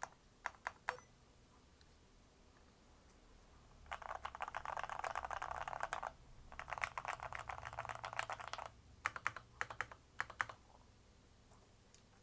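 Typing on a mechanical keyboard: a few single keystrokes, then two fast runs of key clicks of about two seconds each, then a few more strokes before it stops.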